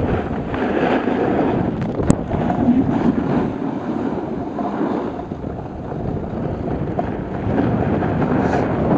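Wind rushing over the microphone and skis scraping over packed snow during a fast downhill run, rising and falling in strength, with one sharp click about two seconds in.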